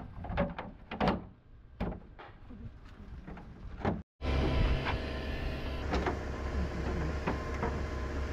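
Plastic trim panel being pushed and knocked into place on a Volvo truck cab: a quick run of sharp clicks and knocks. After a sudden break about four seconds in, a steady low rumble with a few soft clicks.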